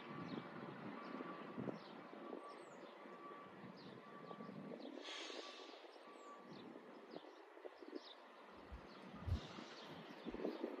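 Quiet outdoor ambience: a small bird chirps over and over in short falling notes, with a faint beep repeating in the background and a brief hiss about halfway through.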